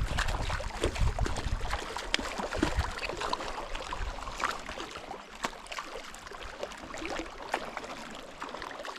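Irregular splashing and sloshing water, with a low rumble at the start, as a hooked tiger trout is drawn in toward the shore.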